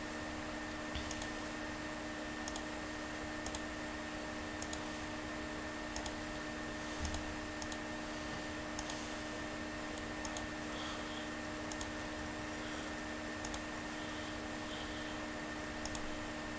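Computer mouse clicking about once a second, the clicks often in quick pairs, over a steady hum.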